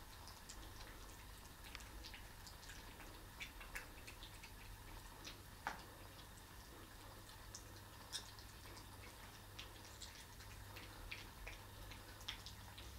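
Near silence: a low steady hum with faint, irregularly spaced small clicks and ticks.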